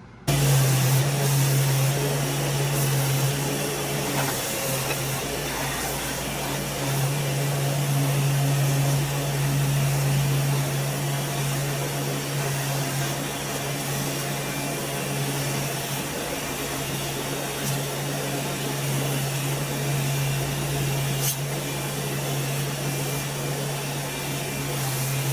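An electric power tool running steadily: a constant low hum over a wide hiss, cutting in abruptly at the start.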